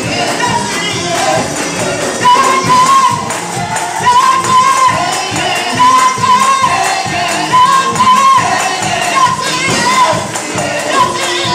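Live gospel praise singing: women's voices on microphones leading the congregation over a drum kit and a shaken tambourine keeping a steady beat.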